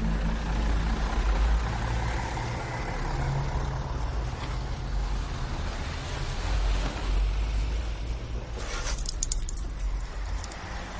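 A vehicle running with a steady low rumble. About eight and a half seconds in the sound changes suddenly to a brighter hiss with a few clicks.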